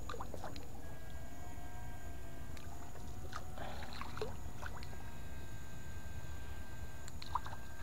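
Low water swishing and sloshing as an electrofishing pole is swept through a shallow muddy pond, with a few light knocks and a faint steady high whine.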